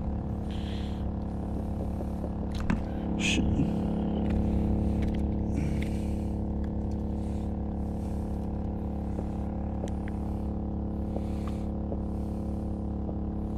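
Portable 3500-watt generator running steadily: a constant hum made of several steady tones. A few light clicks and scrapes come in the first few seconds.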